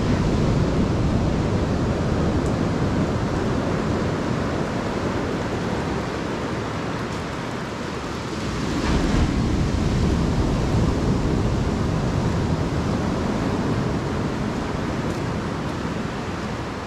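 Ocean surf washing on the shore, a steady rush that swells louder about halfway through, with wind buffeting the microphone.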